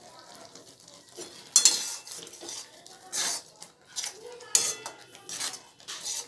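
Stainless steel slotted turner stirring and scraping thick tomato chutney around a steel kadai, giving irregular metal-on-metal scrapes and clinks against the pan. The loudest scrape comes about a second and a half in.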